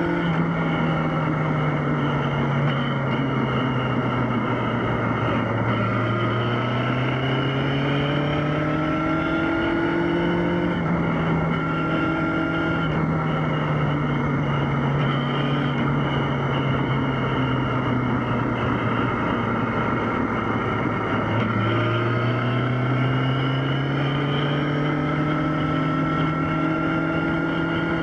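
Yamaha XJ6's inline-four engine under way on the road: revs fall for the first few seconds, climb from about six seconds in, ease back slowly through the middle, then climb again in the last quarter, over a steady rush of wind.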